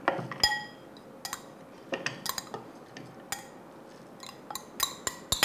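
A metal spoon clinking and tapping against a ceramic bowl and a plastic chopper cup as dry-roasted herbs are scooped and scraped in. The taps come irregularly; one clink about half a second in rings briefly, and several quick taps come near the end.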